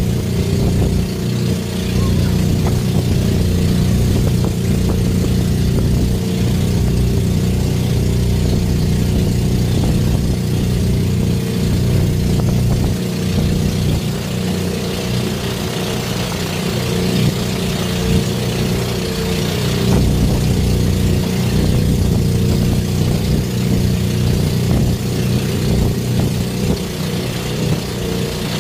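Boat engine running steadily under way: a constant low drone with an even rushing hiss above it.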